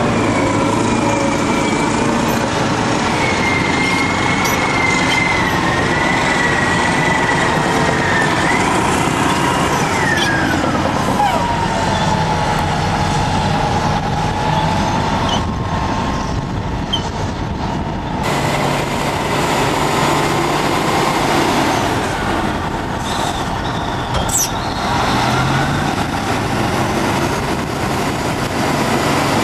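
Caterpillar D10N crawler dozer push-loading a Caterpillar 631E wheel tractor scraper, both diesel engines running hard under load. High whining tones waver over the engine noise and one glides down about ten seconds in. The sound changes abruptly about eighteen seconds in.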